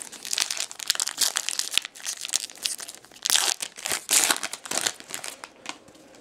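Foil trading-card pack wrapper crinkling and tearing as it is handled and opened, a rapid run of crackles that thins out near the end.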